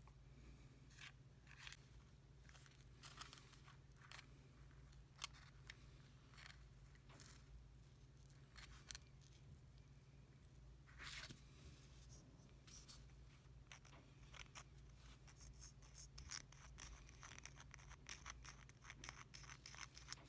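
Faint, irregular scraping and ticking of a small wooden stick working epoxy glue, stirring it against the inside of a wooden brush-handle socket and dabbing it on a plastic mailer, over a low steady hum.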